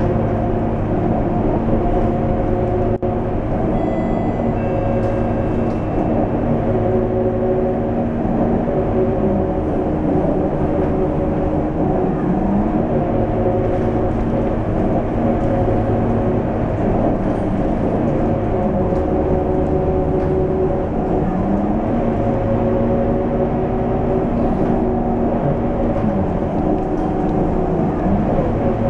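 Scania K230UB bus's five-cylinder diesel engine running under way, heard from inside the passenger cabin with a steady low rumble. The engine note dips and climbs back up several times as the bus eases off and pulls again.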